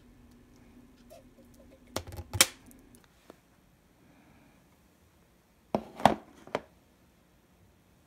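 Plastic food containers knocking and being set down on a table: a quick cluster of sharp clacks about two seconds in, and another about six seconds in.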